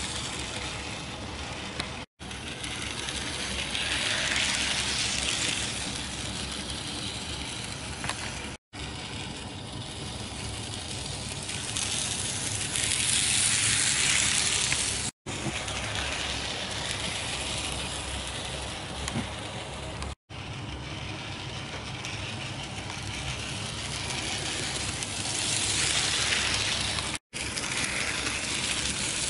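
Small Bachmann N-scale locomotive running light on its first run-in, a steady whir of its motor and wheels on the rails that swells three times as it passes close by. The sound drops out briefly five times.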